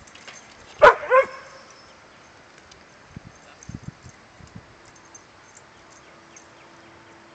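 A dog barks twice in quick succession about a second in, followed by a few faint low thumps.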